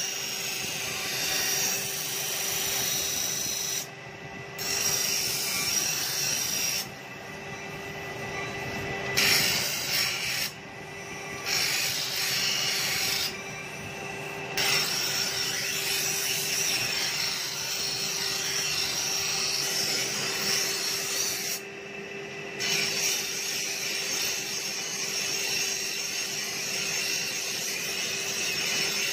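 Steel sickle blade being ground on a motor-driven grinding wheel: a steady hiss of steel against the stone over the constant hum of the running wheel. The hiss drops away for about a second five times as the blade is lifted off.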